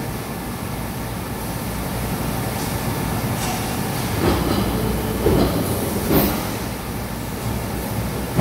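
Steady rumbling noise, with a few short louder swells about four, five and six seconds in.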